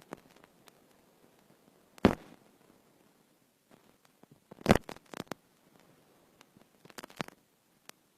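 A few sharp knocks and clacks over a quiet background. One loud knock comes about two seconds in, a quick cluster of them just before the middle, and a couple more near the end.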